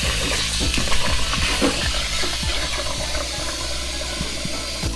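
Kitchen tap running steadily into a stainless-steel pot of rice being washed.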